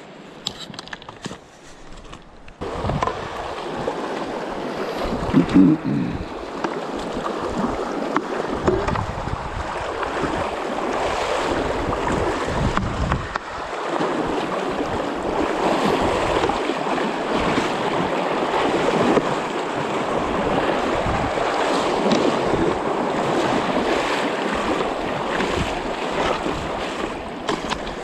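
Shallow, stony river water rushing and splashing close to the microphone as someone wades across on foot. It starts abruptly a few seconds in and then runs on steadily.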